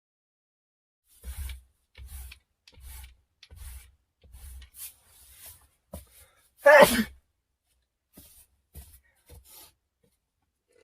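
A person sneezes once, loudly and briefly, about two-thirds of the way in, with a falling voiced end. Faint short noises come before and after it.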